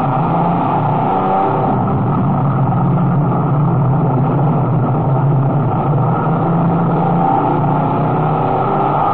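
Dodge race car's engine at speed, heard from inside the car through an onboard camera, running at high revs with small rises and dips in pitch.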